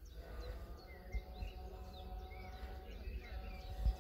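Small birds chirping in short calls over an uneven low rumble of outdoor air, with a louder low bump near the end.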